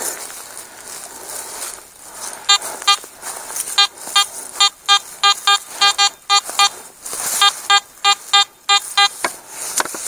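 Metal detector giving a target signal: a run of about twenty short beeps at one steady pitch, repeated each time the coil passes over the spot. They start a few seconds in and stop shortly before the end. The signal is confident and clean.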